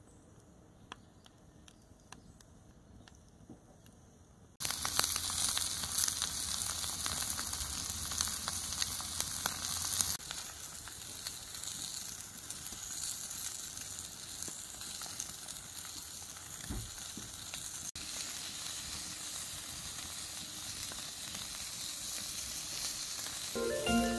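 Steaks sizzling on the hot griddle plate of a wood-fired fire pit. For the first few seconds there is only faint crackling from the fire, then a loud sizzle starts suddenly about five seconds in, settling to a steadier, quieter sizzle after about ten seconds.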